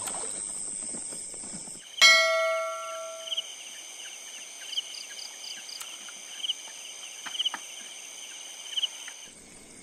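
A single bell-like chime sounds about two seconds in and rings away over a second or so. Under it runs a steady high trilling of night insects with regular pulsing chirps, which drops away near the end.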